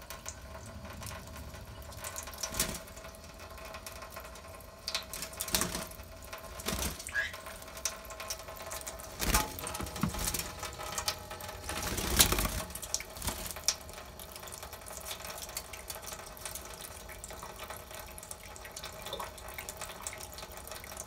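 Kitchen faucet running a thin stream into a stainless steel sink, with a black-headed caique bathing under it. Sudden splashes and wing flaps come several times, the loudest about twelve seconds in.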